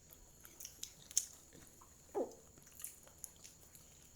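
Faint chewing and biting of snack food, with scattered small clicks and crunches and a brief falling tone about two seconds in.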